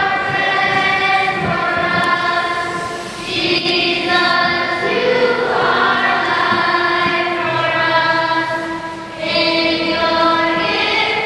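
Choir singing a hymn in long held notes, with short breaks between phrases about three and nine seconds in.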